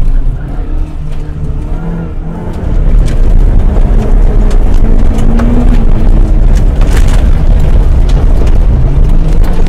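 Engine of a Formula 1000 Nissan Micra rally car being driven hard, heard from inside the stripped-out cabin, its note rising and falling through the corners. From about three seconds in it runs louder with a heavy low rumble.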